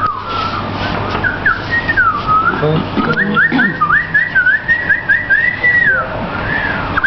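A man whistling by mouth in a birdsong-like imitation. It opens with swooping, sliding notes, then about three seconds in breaks into a quick run of short rising chirps that ends around six seconds.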